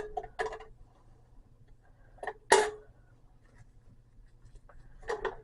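Mostly quiet, with a few brief faint handling sounds as popcorn machine parts are wiped with a tea towel: a short one about half a second in, two close together about two and a half seconds in, and a quick patter of small clicks near the end.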